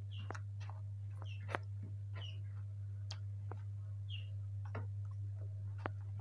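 A person eating fried rice by hand: soft chewing with scattered wet mouth clicks and smacks, over a steady low hum.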